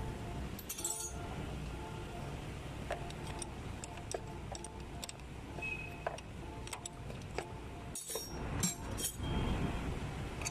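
Background music with scattered metallic clinks and rattles of a socket wrench and extension working on the high-pressure fuel pump's bolts, the clinks coming thicker and louder near the end.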